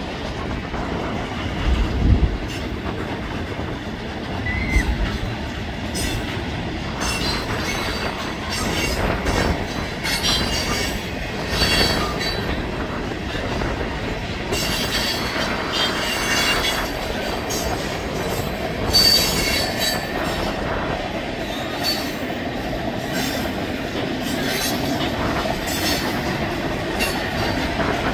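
Freight train cars rolling past, clattering over the rails with irregular metallic clanks and bouts of high-pitched wheel squeal.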